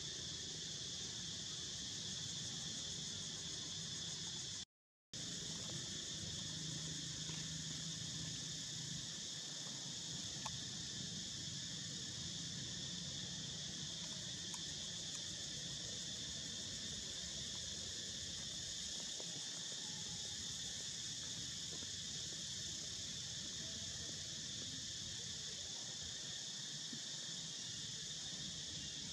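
Steady, high-pitched chorus of insects buzzing without a break. The sound cuts out completely for a split second about five seconds in.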